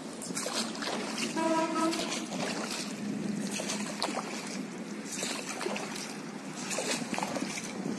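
Water splashing and lapping around a small rowing boat as it is rowed with oars, with a brief steady tone about a second and a half in.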